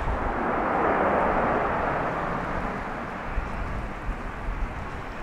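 Jet airliner engines, a broad rushing noise that swells about a second in and then slowly fades.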